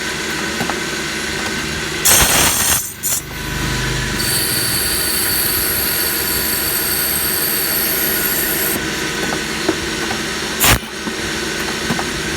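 Drilling machine running as it drills copper electrical terminal blocks, with a steady hum. A loud rushing burst comes about two seconds in, a high steady squeal runs from about four seconds to nearly nine, and a sharp knock sounds near the end.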